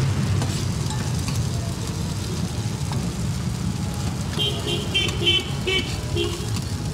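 Steady low rumble of passing motorbike and car traffic, with a run of short horn beeps about four to six seconds in.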